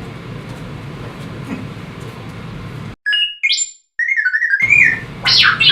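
A steady low hum for about three seconds, then a run of quick electronic chirps and bleeps that jump and glide in pitch, like synthesizer sound effects.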